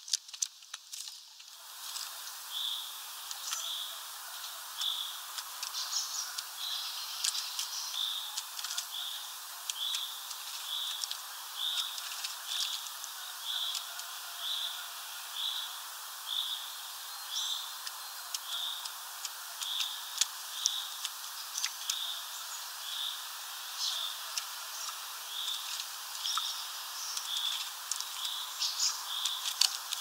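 A bird calls one short high note over and over, a bit more than once a second, over a steady hiss of rain with scattered drips and taps.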